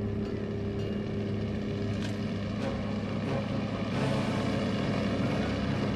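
Heavy vehicle engines running with a steady, low drone. About four seconds in, it grows louder and rougher as a big truck's engine joins.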